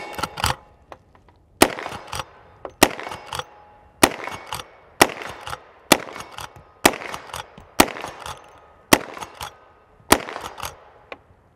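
Reproduction 1873 Winchester lever-action rifle firing .38 Special rounds rapid-fire, nine shots about a second apart. Each shot is followed by a few quick clacks as the lever is worked to chamber the next round.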